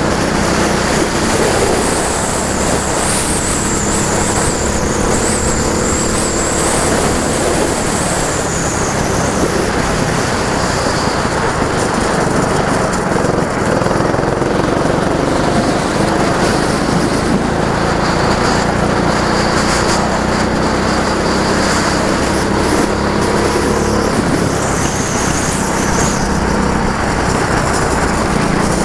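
Go-kart engine running at track speed, its pitch rising and falling as it accelerates and backs off, with a high whine that swells during a few stretches.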